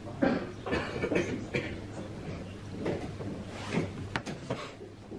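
Wooden chess pieces set down on the board and the chess clock's button pressed during a blitz game: a quick, irregular run of sharp clicks and knocks over a low steady hum of room noise.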